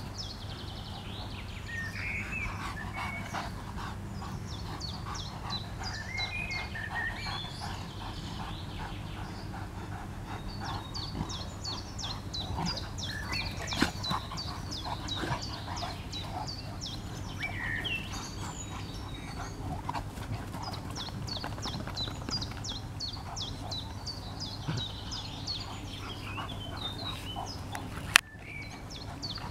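Two Central Asian Shepherd Dogs play-fighting, their dog sounds over steady birdsong of rapid high chirps. A single sharp knock comes near the end.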